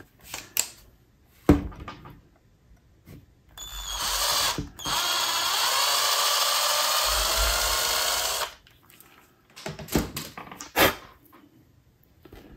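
Small electric drill running for about five seconds, rising slightly in pitch as it spins up and then holding steady until it stops suddenly, as it drills out the bore of a small replacement locomotive motor gear to fit the shaft. A few light handling clicks and knocks come before and after.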